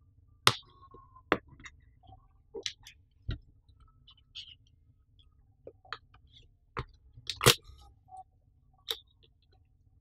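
Cardboard webcam box being handled and opened by hand: irregular scrapes, taps and clicks of the paperboard flaps and sleeve, with sharp snaps about half a second in and again past seven seconds.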